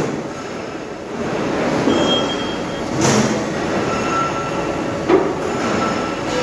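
Machine-shop machine tool running: a steady loud mechanical noise with a faint high whine, and two short knocks about three and five seconds in.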